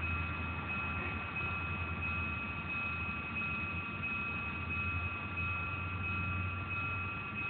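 Level crossing warning signal sounding a steady high-pitched tone, over a low steady rumble from the departing diesel freight train.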